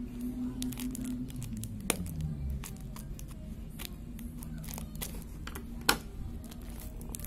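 Scissors cutting through the clear tape and plastic wrap of a paper-wrapped parcel, with crinkling and rustling of the wrapping and a run of small clicks. Two sharper clicks stand out, about two seconds in and just before six seconds.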